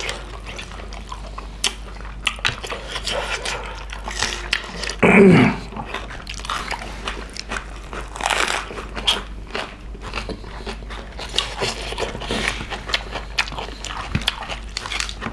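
Chewing and crunching as two people bite into lettuce leaves and raw onion with pig's feet curry and rice, with many short crunchy clicks and a brief vocal sound about five seconds in.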